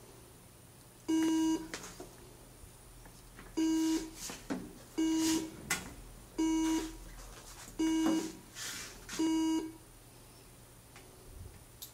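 Breath alcohol testing instrument beeping six times while it runs its tests: each beep is a buzzy tone about half a second long. After the first beep there is a longer pause, then the rest come about every second and a half, with faint clicks in between.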